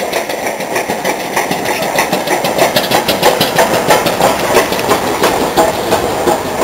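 Steam-hauled passenger train behind an LMS 8F 2-8-0 locomotive running into the platform: a dense clatter of wheels over the rail joints, growing louder as the engine and coaches draw alongside.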